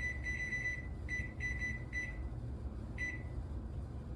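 Electronic beeps from an oven's keypad as its timer is set: a run of beeps in the first second, then several short quick beeps, and one last beep about three seconds in, over a steady low hum.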